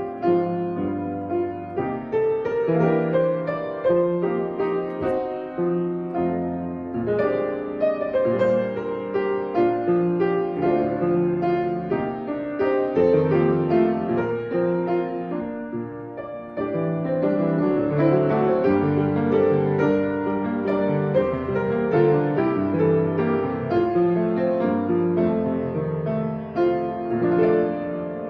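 Solo piano playing a slow, gentle instrumental piece in held chords.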